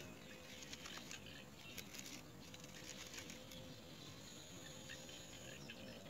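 Faint rustling and light clicking of a great myna shifting about in its twig nest while it feeds its chick, thickest in the first half.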